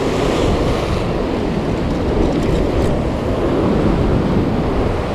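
Ocean surf breaking and washing against the rocks below, a steady rush, with wind buffeting the microphone.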